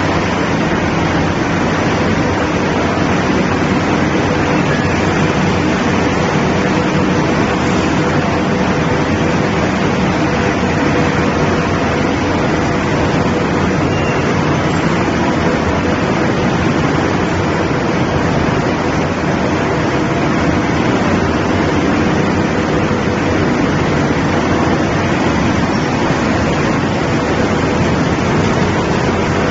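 Steady machine noise from investment-casting shell-making equipment running, the slurry tank and sanding machine, with a faint steady hum under it.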